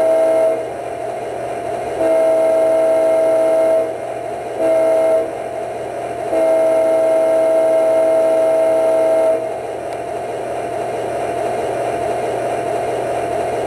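Diesel locomotive horn played by the MTH Protosound 2 sound board in an O-gauge model U30C: the end of one long blast, then another long, a short and a long, the grade-crossing signal. The board's steady diesel engine sound runs beneath and goes on alone after the last blast.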